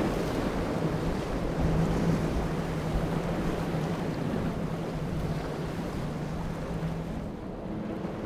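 Twin outboard engines running under power as the boat drives through rough breaking waves. A steady engine drone sits under rushing water and spray, with wind on the microphone. The engine tone fades a little near the end.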